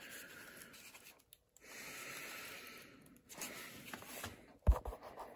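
Small 8 mm film boxes being handled and shuffled: two stretches of rubbing and scraping, a few lighter rustles, then a sharp knock near the end.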